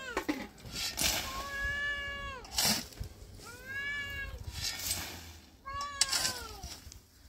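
A cat meows three times, long drawn-out calls that fall in pitch at the end. Between and under them a shovel strikes and scrapes dry stony ground, with the sharpest hits about two and three-quarter and six seconds in.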